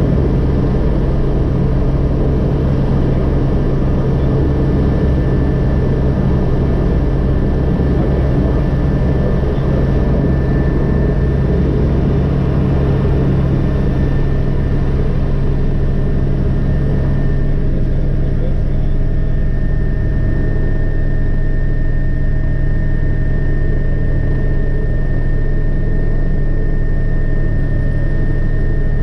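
Agusta AW119's single Pratt & Whitney PT6B turboshaft engine and main rotor running, heard from inside the cockpit: a loud, steady turbine whine over a pulsing low rotor beat. A little past halfway the whine steps up as the engine is brought up to full rotor speed.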